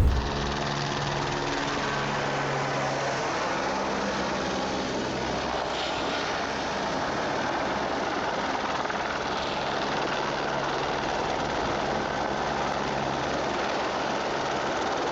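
Helicopter running steadily: an even, dense rushing noise with a low hum that is clearest in the first several seconds.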